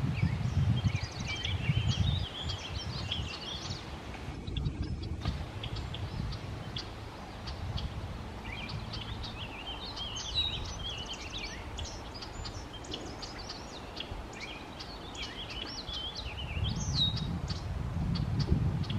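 Several wild birds singing and chirping in quick, high, varied phrases, heaviest early on and again through the second half. Under them runs a low rumbling noise on the microphone, heavier at the start and near the end.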